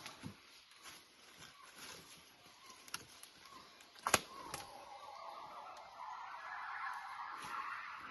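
Cao-vit gibbon calling: a long, fast-pulsing call that starts about halfway through and slowly rises in pitch. A few sharp clicks come before it, the loudest just as the call begins.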